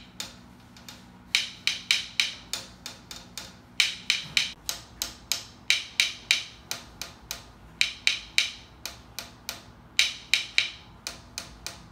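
The ball head of a stainless-steel telescopic hollow-tile test rod tapping on ceramic wall tiles, in quick runs of about three to four sharp taps a second, some runs louder and more ringing than others. The louder, clearer-ringing taps are the sign of a hollow spot where the tile is not fully bonded; duller, lower taps mark solidly bonded tile.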